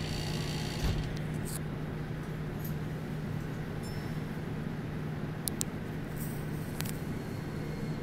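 Steady running noise of a Tokyo subway train or its underground station: a constant low hum under a even rumble, with a few brief clicks.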